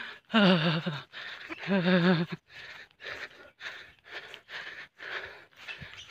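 A man breathing hard, winded from a hot uphill hike: two voiced gasps in the first couple of seconds, then quick, even breaths about two a second.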